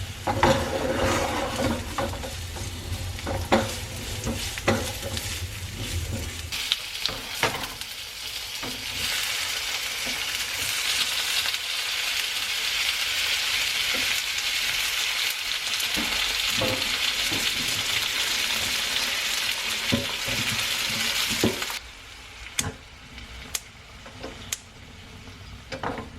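Chopped garlic and onion frying in sunflower oil in a pan, sizzling while a utensil stirs and taps against the pan. The sizzle grows louder about nine seconds in and drops off sharply a few seconds before the end, and a low hum stops about six seconds in.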